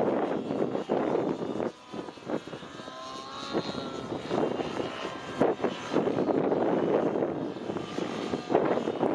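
Nitro RC helicopter (Outrage Velocity) engine and rotor blades during aerobatic flight. The sound drops away sharply about two seconds in, with the engine pitch rising and falling while it is quieter, then builds back up from about six seconds in.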